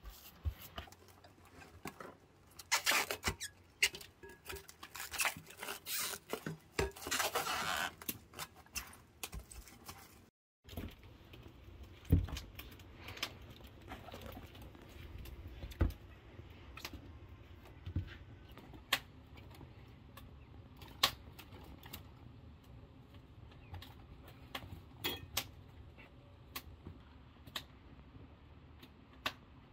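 Hands kneading a ground-meat mixture in a glass bowl: wet squelching and slapping in dense bursts. After a short break, scattered light knocks and clicks on a wooden cutting board.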